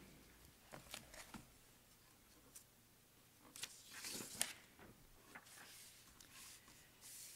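Near silence with a few faint rustles and small clicks: paper being handled at a pulpit, picked up by its microphone. The rustling is busiest about halfway through.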